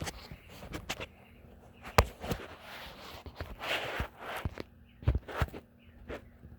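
Irregular knocks and clicks with short rustling stretches between them, over a faint steady low hum.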